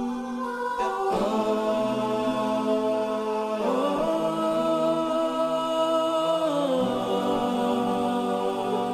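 Slow ambient background music of held chords that shift every few seconds.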